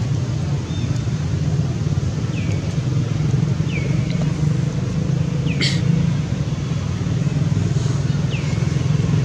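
Steady low rumble throughout, with a few short, high chirps that fall in pitch every second or two and one sharp click about halfway through.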